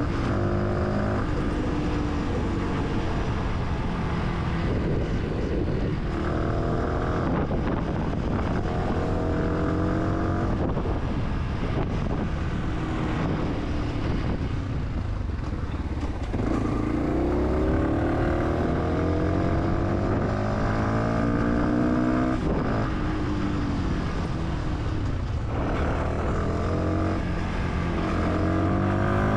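Fantic 125 supermoto's single-cylinder engine pulling through the gears, its note rising with each run and dropping at every upshift, easing off briefly about halfway through before accelerating again.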